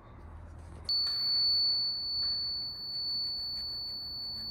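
Laser level receiver on a grade staff sounding one steady high-pitched tone, starting about a second in: the on-grade signal that the detector is level with the laser beam. Faint scratching of a carpenter's pencil marking the steel post runs underneath.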